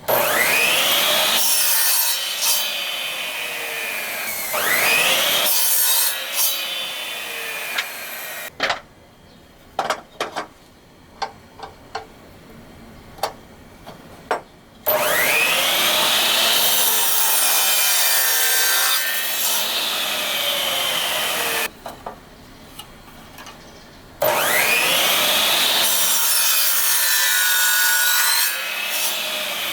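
An electric power tool working wooden planks in three runs of several seconds each, its motor pitch rising as each run starts. Sharp clicks and knocks of the wood being handled come between the runs.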